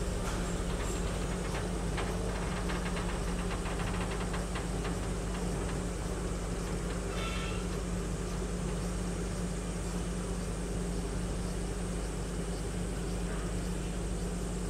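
Electric freight locomotive and its wagons running along the track, a steady low hum with quick clicking from the wheels and rail in the first few seconds.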